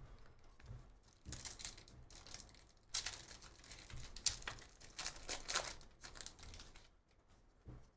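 Foil trading-card pack torn open by hand, its wrapper crinkling and ripping in a run of crackles that starts about a second in and dies away after about six seconds.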